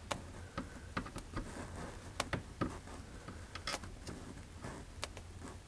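Faint, irregular clicks and scrapes from a microphone rubbing against the side of a model railroad layout as the wearer reaches underneath it.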